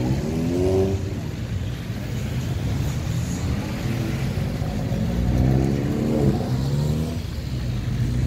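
Cars, among them classic Minis, pulling away past one after another at low speed. Their engines rise in pitch as they accelerate, twice: just after the start and again around five to six seconds in.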